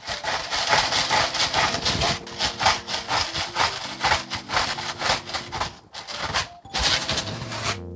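Hand-twisted salt grinder grinding coarse salt over a pot, a fast run of gritty crunching strokes, about three or four a second, that stops shortly before the end.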